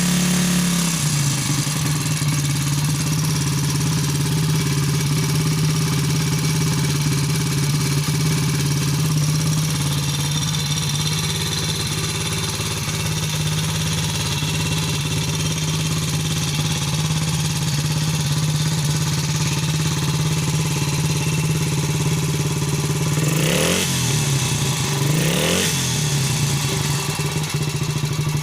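Terrot 125 ETDS motorcycle engine running steadily at idle, its note settling about a second in. Near the end the throttle is blipped twice, two quick revs a couple of seconds apart.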